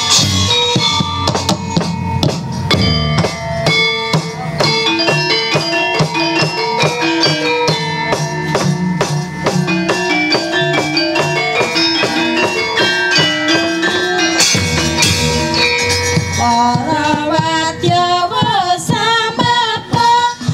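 Gamelan ensemble playing the accompaniment to a wayang kulit shadow-puppet play: kendang drum strokes under a steady run of struck bronze metallophone notes. A wavering melodic line joins in about three-quarters of the way through.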